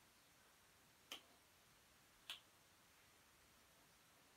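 Two sharp hand claps about a second apart, as the arms swing open and then come together in front of the chest in a self 'high five' chest-opener.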